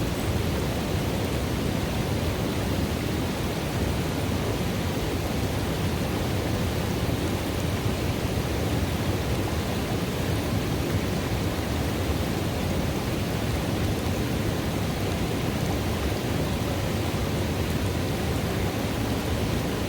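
River water running steadily into a pool: a constant, even noise, fullest in the low range.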